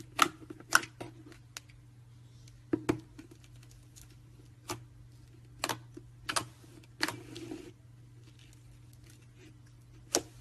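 Small hard objects being handled and set down on a tabletop: about a dozen scattered clicks and knocks, with a brief scrape about seven seconds in, over a faint steady hum.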